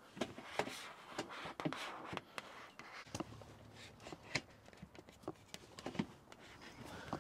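Irregular light knocks and clicks of a stacking camp cot's metal frame being handled and fitted together as one cot is set on top of the other to form a bunk bed.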